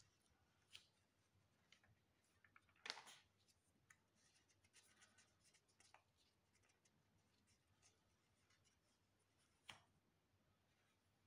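Near silence with faint scattered rustles and small taps of handling, the two loudest about three seconds in and near the end.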